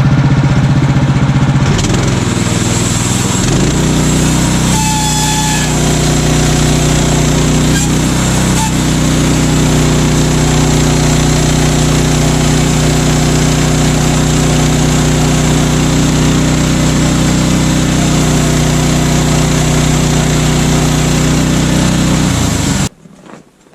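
Portable band sawmill running, its engine at a steady working speed as the band blade cuts an old barn beam with a blade already pooched by nails. The engine note drops in the first few seconds, and the engine shuts off abruptly near the end.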